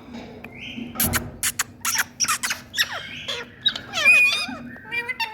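Indian ringneck parakeet chattering: a quick run of sharp clicks and short harsh calls about a second in, followed by warbling, whistled notes that slide down and up in pitch.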